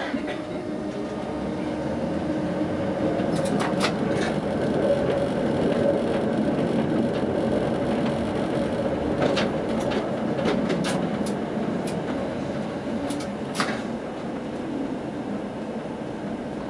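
Tatra T6A5 tram running along street track, heard from the driver's cab: a steady rumble with a constant hum, broken by sharp clicks, a few about four seconds in and more between nine and fourteen seconds.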